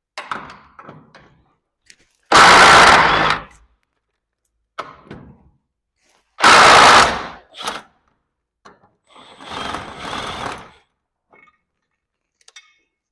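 Cordless drill driving out the screws of a garage door roller bracket, in two loud bursts of about a second each, about two and six seconds in. Smaller clinks and a longer, quieter rattle of metal hardware being handled come between.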